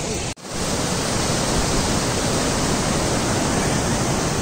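Steady, loud rushing noise with no distinct tones, briefly cut off about a third of a second in.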